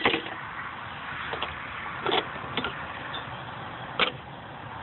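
About five short, sharp clicks and knocks from hands working at the top of a car battery in the engine bay, over steady background noise.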